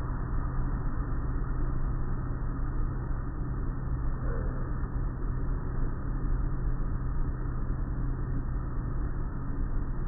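Spinning cloth brushes of an automatic car wash scrubbing the car with water spray, heard muffled from inside the car: a steady wash of noise over a steady low hum.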